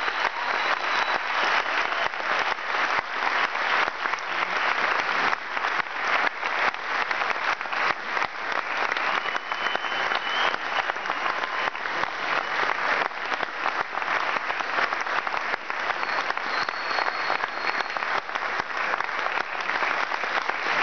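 Audience applauding: a dense, unbroken round of clapping that holds steady throughout.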